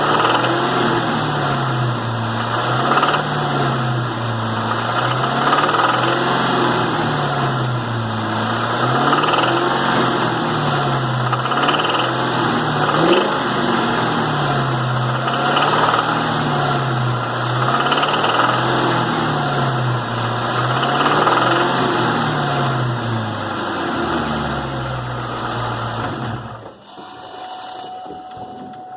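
Ford SVT Cobra's 4.6-litre four-valve V8 being revved gently up and down, over and over, about every three seconds, with the knocking noise it makes on light load. The engine sound cuts off near the end.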